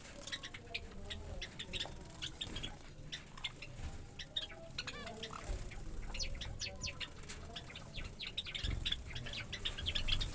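Small cage birds, finches and Java sparrows, chirping: a dense, continuous stream of short, high calls, several a second, from more than one bird.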